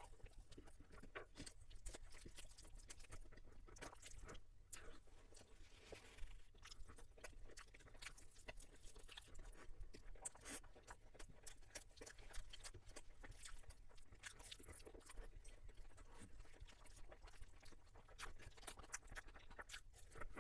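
Faint, close-up sounds of a person chewing and crunching food, a steady run of small irregular clicks and mouth noises.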